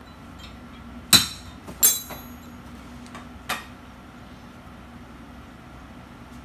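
Metal parts clinking against each other or onto a hard surface during motorcycle engine assembly: three sharp metallic clinks with a short ring, the first two about a second in and less than a second apart, a lighter one a couple of seconds later.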